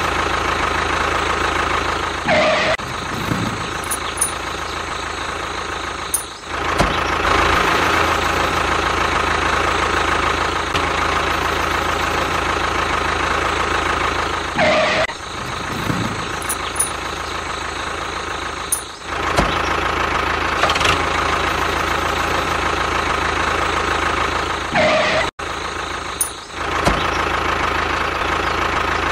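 Tractor engine running steadily at idle, with a few short dips and breaks in the sound.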